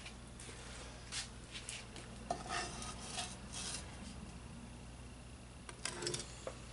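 Metal spatula scraping and clinking against a cast-iron Dutch oven as baked squash halves are lifted out. A handful of short scrapes a second or so apart, with a louder cluster near the end as a half is set down on the cutting board.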